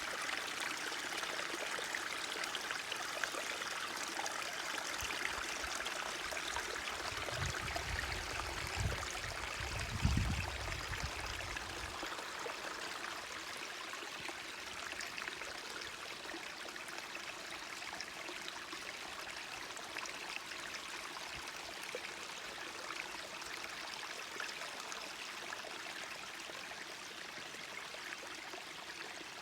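Stream water running steadily in a forest, an even rushing hiss, with a few low bumps about a third of the way in.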